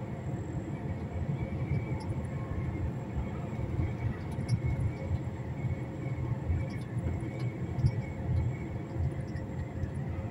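Steady rumble of a heavy truck under way, its diesel engine and road noise heard from the cab.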